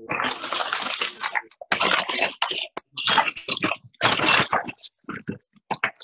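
Hands moving and arranging small pieces of cut glass on a glass sheet laid over newspaper: a series of scratchy scraping and rustling bursts, each about half a second to a second long.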